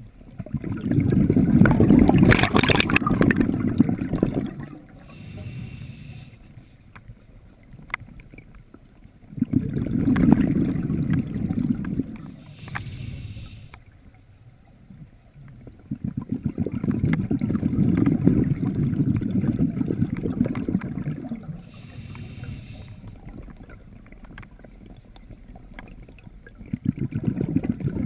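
Scuba diver breathing underwater: long rumbling bursts of exhaled bubbles, four of them a few seconds each, with a short hiss of inhalation through the breathing gear between them.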